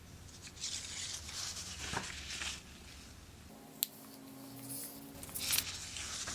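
A paper triangle rustling as it is folded in half and creased to make a centre line, in two soft spells with a single sharp tick between them.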